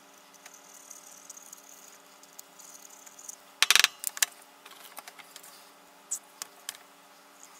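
Small metal parts of a silver petrol lighter being handled: one loud, short scraping clatter a little past halfway, then a few light clicks and taps. A steady low hum sits underneath.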